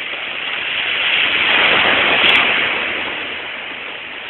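Sea wave washing in: a rushing noise that swells to a peak about two seconds in and then eases off.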